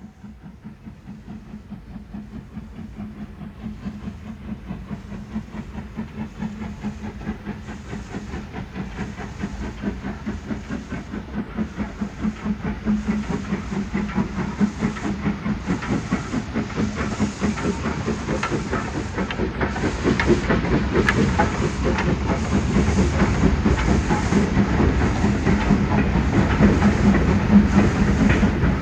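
Steam train approaching, growing steadily louder throughout, with a quick regular beat over a steady hiss and a low hum.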